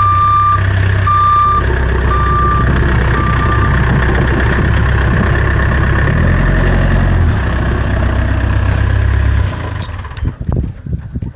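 Tractor engine running with a reversing alarm beeping four times at about one beep a second, then the engine sound falls away about nine seconds in.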